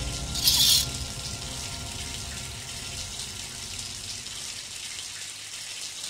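Shower water running steadily, with a short sharp swish about half a second in as the shower curtain is pulled open.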